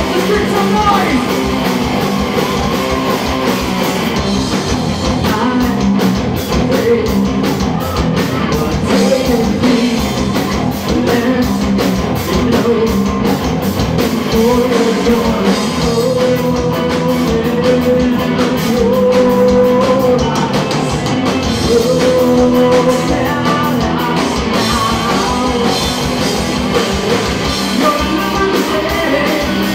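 Rock band playing live: electric guitar and drum kit with a lead voice singing over them.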